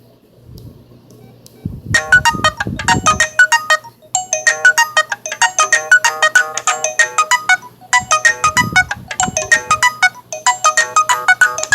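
LG CU500 phone speaker playing one of the LG VX8700's ringtones: a quick, bright electronic melody of short notes over a low beat. It starts about two seconds in after a short quiet gap and breaks off briefly twice.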